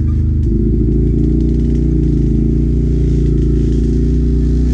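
Can-Am ATV engine running at steady throttle while riding, its note shifting about half a second in.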